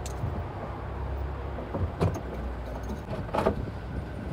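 Knocks and rattles of someone handling things inside the car's cabin, three short ones about two seconds in, at three and a half seconds and at the end, over a steady low hum.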